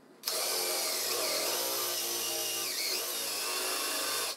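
Cordless drill starting up about a quarter second in and running steadily as its bit bores the hole for a threaded insert into a softwood board, with a brief dip in pitch near the three-second mark, stopping just before the end.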